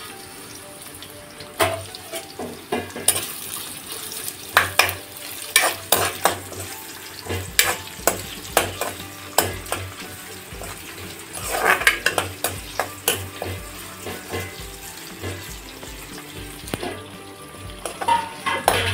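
Sliced onions, curry leaves, dried red chillies and mustard seeds sizzling in hot oil in a steel pan. They are being stirred with a spatula, which makes frequent sharp scrapes and clacks against the pan.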